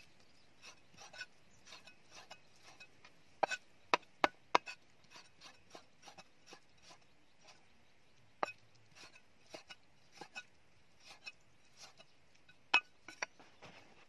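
Cleaver chopping pork belly on a round wooden chopping block: irregular knocks of the blade on the wood, mostly light taps, with a run of four hard chops a few seconds in and single hard ones later.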